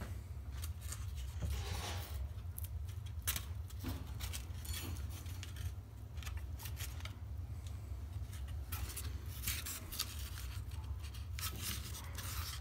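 Irregular short clicks and crackles of hands pulling a foam puppet jaw free from its wired stick-and-motor mechanism, over a steady low hum.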